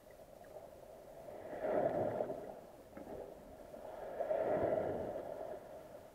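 Muffled underwater rushing of wave surge over a shallow seabed, heard through an underwater camera's housing, swelling and fading twice about two and a half seconds apart.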